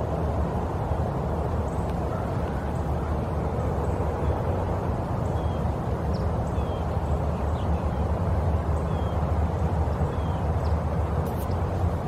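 Steady low outdoor rumble that never lets up, with faint, short high chirps scattered through it.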